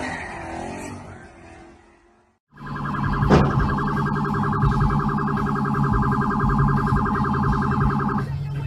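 Vehicle noise fades to a moment of silence. Then a car horn sounds in one long, steady, held blast of about six seconds and cuts off abruptly near the end.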